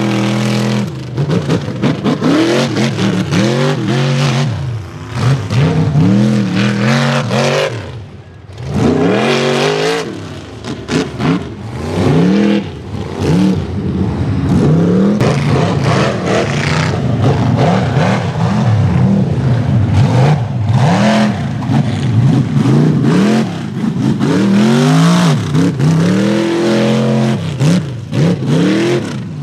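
Rock bouncer buggy's engine revving hard in repeated bursts of throttle, the pitch climbing and dropping again and again, with a brief lull about 8 seconds in.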